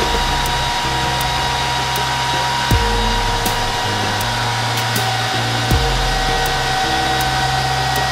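Cooling fans of a Dell PowerEdge R710 server whirring steadily at high speed, with steady whining tones over a rushing blow. One of the tones drops slightly about five seconds in. The fans have ramped to full speed to make up for a failed fan and because the cover is off, and are crazy loud. A couple of light knocks come from handling the fan parts.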